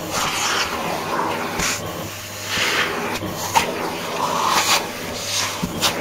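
Handheld vacuum cleaner running with a steady motor hum, its suction hiss surging again and again as the nozzle is pressed to and drawn over socks.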